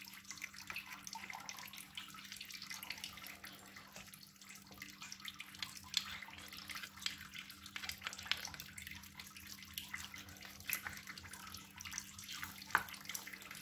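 A spatula stirring a wet mix of mashed tofu and raw egg in a glass bowl: faint, irregular squishing with light clicks against the glass, over a steady low hum.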